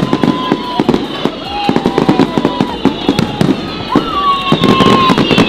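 Aerial fireworks going off in a rapid barrage of bangs and crackles, with high whistling tones from whistle effects, some held and some falling in pitch.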